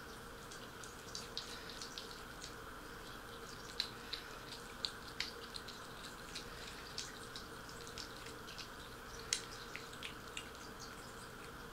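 Kittens suckling, with small wet, irregular clicks and smacks a few times a second over a faint steady room hiss.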